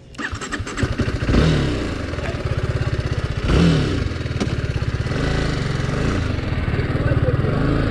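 TVS Apache RR 310 motorcycle's single-cylinder engine running as the bike rides on, its revs rising briefly about a second and a half in and again near the middle.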